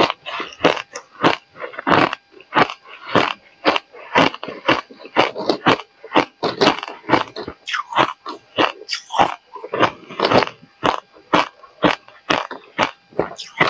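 Close-miked crunching of hard ice being bitten and chewed, a quick run of sharp crunches about two or three a second.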